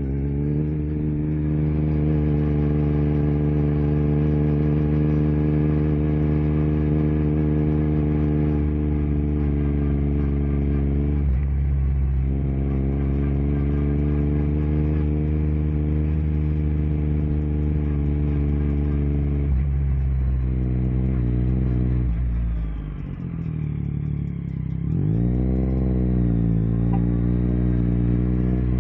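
2022 Yamaha Tracer 9 GT's 890 cc inline-three engine running through an unbaffled Akrapovic full exhaust while riding. The engine note holds steady, drops and climbs back twice, then eases off and falls low about three-quarters of the way through before rising again.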